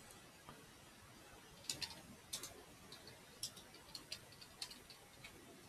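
Faint keystrokes on a computer keyboard: about a dozen quick clicks in small clusters, starting about a second and a half in, as commands are typed.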